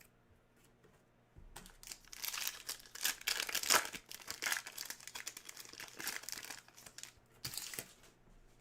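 Crinkling of a plastic trading-card pack wrapper as it is handled and torn open, a dense run of crackles from about a second and a half in until near the end.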